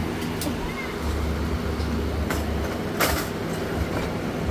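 Steady low machine hum, with a deeper rumble swelling for about a second and a half and a few light clicks and knocks, the loudest about three seconds in.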